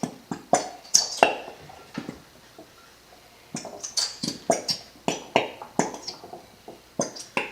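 Squeeze bottles of glitter glue being squeezed out, sputtering and squirting in short irregular spurts as air pushes through the glue, in two runs with a short pause between.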